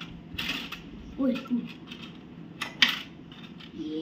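Plastic tabletop foosball game in play: rods rattling in their holes and sharp plastic clacks as the little players strike the ball, the loudest clack a little under three seconds in.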